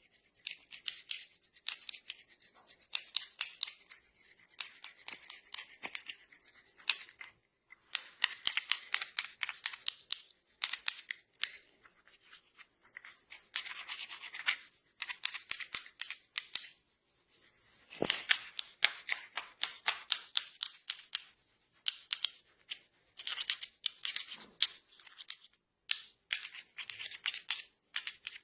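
Hands rubbing and scratching briskly through hair and over the scalp in a head massage: rapid, crisp strokes in runs of a few seconds, with brief pauses between runs.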